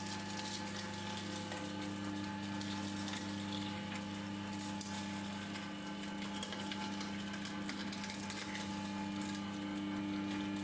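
JEEVA mini three-roll sugarcane juice machine running under its 400-watt electric motor, with a steady hum. Light crackling over the hum comes as sugarcane is crushed between the stainless steel rollers.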